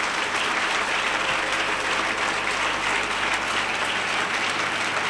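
Large audience applauding, a steady dense clapping.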